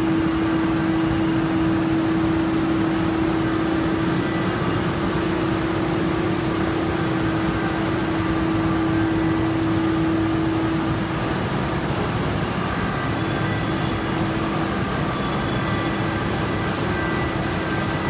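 Steady running noise of factory machinery, with one constant mid-pitched drone over a broad hum; the drone weakens about eleven seconds in.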